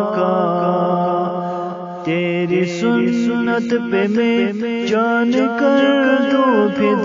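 A man's voice singing an Urdu naat unaccompanied, in a slow, chant-like melody: one long held note, then about two seconds in a new phrase that moves up and down in steps.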